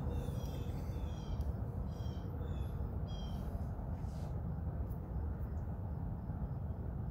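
Storm wind rushing over the microphone as a steady low roar. A bird gives several short, high calls in quick phrases during the first three seconds or so.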